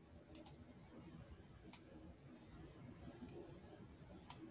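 Near silence broken by a few faint computer mouse clicks: a quick double click about half a second in, then three single clicks spread over the next four seconds.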